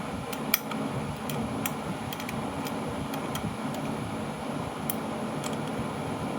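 Light, irregular metallic clicks and ticks from the small parts of a Delco starter solenoid being handled and taken apart, over a steady background hum.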